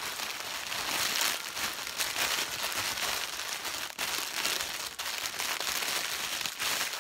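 Clear plastic bag crinkling and rustling steadily as a plush doll is worked out of it by hand.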